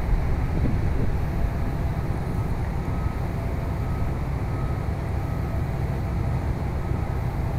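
Steady low rumble of heavy diesel demolition excavators running, with a faint high tone coming and going.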